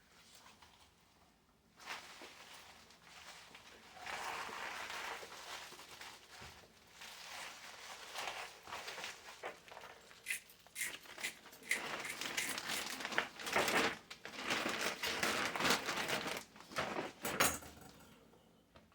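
Rustling and crinkling of broccoli leaves being handled and packed into bags, with many small clicks and knocks, busiest in the second half.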